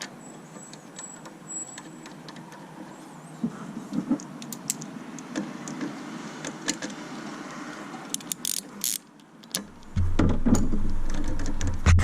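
Scattered light metallic clicks and clinks of tools and parts being handled while reassembling the engine bay. About ten seconds in, a much louder low, uneven rumble takes over.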